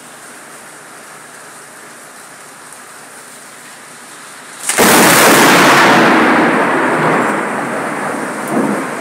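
Steady rain falling, then about five seconds in a sudden loud thunderclap that rumbles on and slowly fades.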